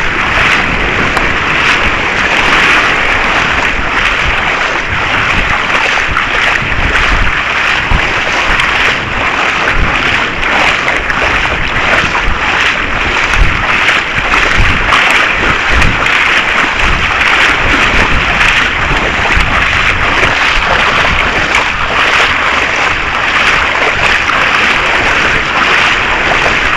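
Passenger train running along the line, heard from inside the carriage: a loud, steady rushing noise with an uneven low rumble underneath.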